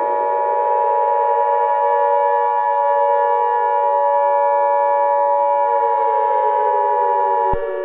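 Emergency Alert System attention signal, a steady two-note tone, sounding over a civil defense siren that slowly winds up and then down in pitch. The attention tone cuts off abruptly with a click about seven and a half seconds in, leaving the siren going, just before the emergency announcement.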